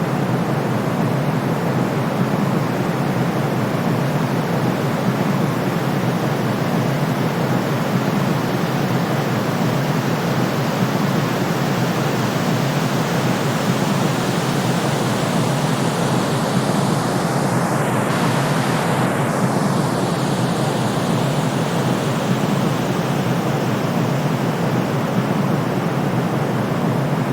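Steady synthetic white noise of a deeper, pink-noise-like colour, heaviest in the low and middle range with softer hiss above. It plays as an even, unbroken rush.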